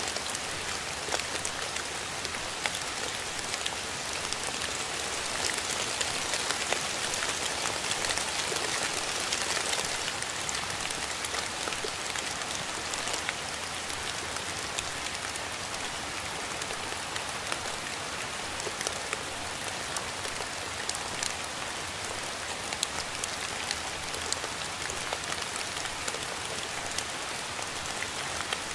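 Steady rain falling: a dense, even hiss strewn with many small drop ticks, a little heavier in the first third and easing slightly about ten seconds in.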